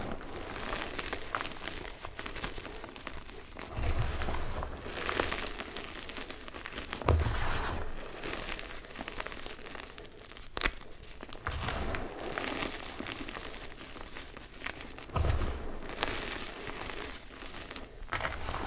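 Hands squeezing and sifting crushed, dyed Chalklate gym chalk: powdery crunching and gritty rustling of chalk and small lumps, swelling with a firmer squeeze every few seconds, with one sharp click about ten seconds in.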